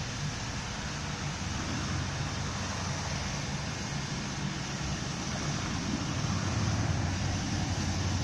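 Steam locomotive standing with steam up: a steady hiss and low rumble, a little louder near the end.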